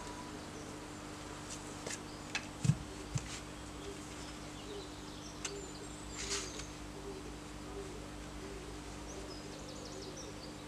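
Low steady background hum, broken by a few light knocks and clicks as a knife and green sticks are handled, and a short scrape of the blade on wood about six seconds in.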